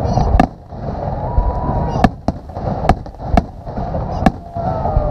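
Fireworks shells bursting: about six sharp bangs at uneven intervals over a low rumble, with a falling whistle near the end. A crowd chatters underneath.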